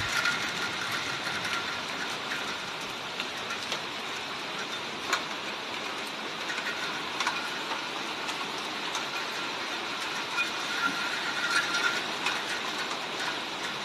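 Torrential rain pouring down, a steady dense patter with a few sharper clicks of drops striking nearby surfaces.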